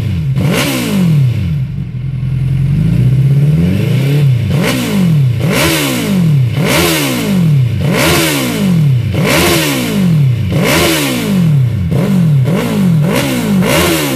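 Suzuki Hayabusa inline-four sport bike engine revved through a single Hurricane HF1 aftermarket exhaust tip on one side: quick throttle blips, about one a second, each rising and dropping back, with one longer held rev a couple of seconds in.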